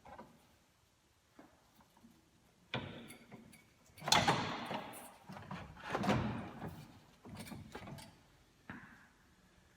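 A replacement radiator being worked into place in a pickup truck's front end: several separate knocks and scraping slides of the radiator against its mounts, each dying away within about a second.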